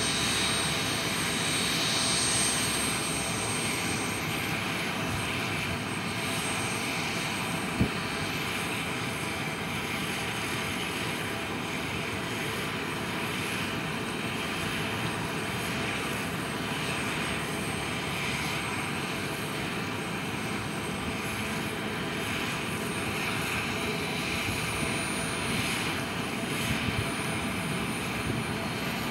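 Bell 206B JetRanger running on the ground with its main rotor turning: the Allison 250 turboshaft gives a steady high whine over the rotor's rushing noise. A single sharp click about eight seconds in.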